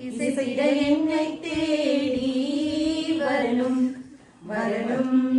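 A group of women singing a song together without instruments, holding long notes, with a short break about four seconds in.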